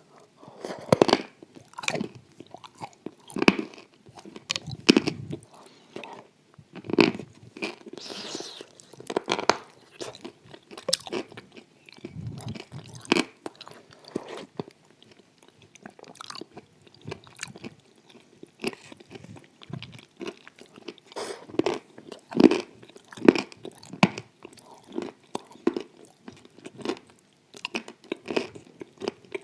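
Mouth sounds of a person eating a thick, wet white paste of chalk and clay from a spoon: irregular crunching and chewing with sharp clicks and smacks.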